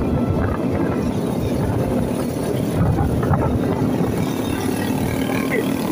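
Motorcycle engine running steadily at road speed, heard from the moving bike, with road noise.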